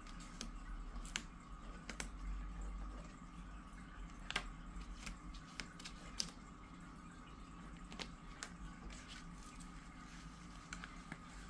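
Faint, scattered small wet clicks from a British shorthair cat's mouth as it works at something with its head bowed, over a steady low hum.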